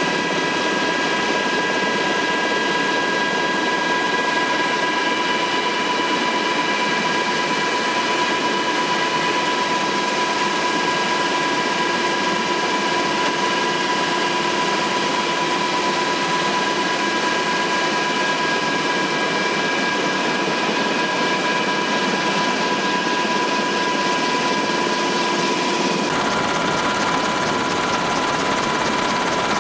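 Military helicopter in flight, heard from inside the cabin: a loud, steady rush of engine and rotor noise with a high whine in several steady tones. The sound changes abruptly about 26 seconds in.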